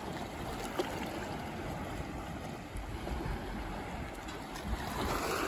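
Shallow water lapping and trickling over rocks and pebbles, a steady wash with small scattered splashes, swelling a little louder near the end.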